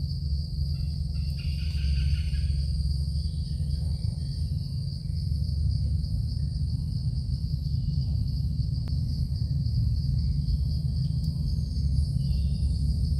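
Steady high-pitched drone of insects in the forest, unbroken throughout, over a continuous low rumble.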